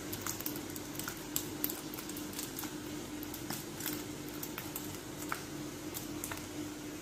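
A steady low hum with scattered short clicks and ticks.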